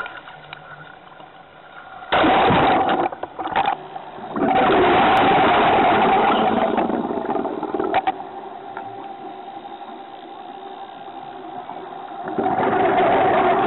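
Scuba diving sound: a loud rush of water about two seconds in as a diver enters, then the bubbling rush of regulator exhalations underwater in two long surges, over a steady hum.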